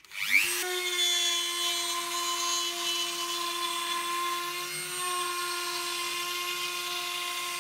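Dremel 4200 rotary tool switched on, its motor whining up to speed within about half a second and then running steadily at a high pitch while the bit grooves a line along an MDF sheet.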